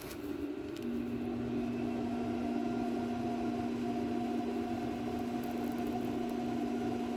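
Handheld induction heater running and humming as it heats a rusted, seized bolt and nut toward cherry red. A steady low tone comes on about a second in and a higher steady tone joins it shortly after.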